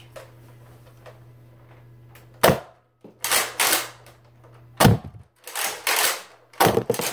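A Nerf Fortnite Tac Shotgun, a pump-action foam-dart blaster, firing three sharp shots about two seconds apart. Between the shots come noisier strokes as the pump is worked to re-cock it.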